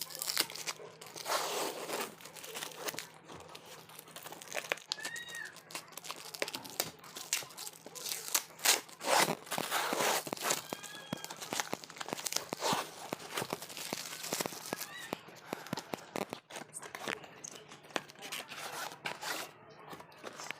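Parcel packaging being torn open and handled: irregular crinkling, tearing and crackling throughout.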